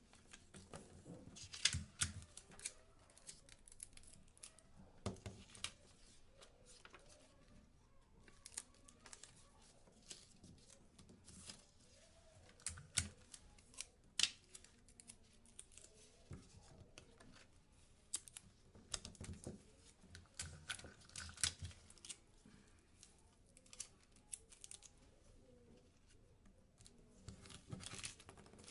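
Quiet, irregular rustling and light tapping of paper as photos and paper cutouts are handled, arranged and pressed onto construction-paper scrapbook pages.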